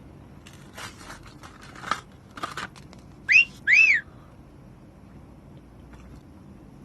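A few short crinkling, rustling sounds, then two short whistled notes, each rising and then falling, the second slightly longer and the loudest sound.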